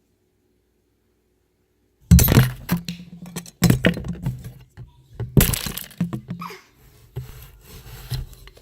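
Silence, then about two seconds in a loud run of crashes and breaking sounds, like glass and hard objects smashing and falling, several sudden hits at uneven gaps.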